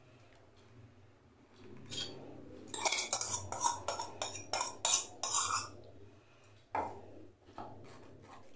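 Metal spoon scraping and clinking against a steel grinder jar and a steel mesh strainer as thick mint paste is scraped out and pressed through the sieve. A quiet start gives way about two seconds in to a quick run of scrapes and clinks, with a few more near the end.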